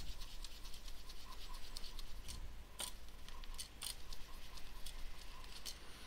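Tissue paper dampened with isopropyl alcohol being rubbed and scrubbed over a laptop's copper heatsink plate, a faint, irregular scratchy rustle with a few sharper ticks, as old thermal paste is wiped off.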